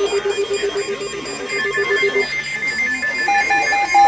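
Electronic alert beeping from weather alert radios. Several overlapping beep patterns sound: a low, rapid beeping stops about two seconds in, a higher-pitched beeping starts about a second and a half in, and another pulsing beep joins near the end. The beeping signals an incoming warning broadcast.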